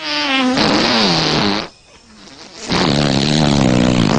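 Two long comic fart sounds, each lasting about a second and a half with a wavering pitch, the second lower than the first.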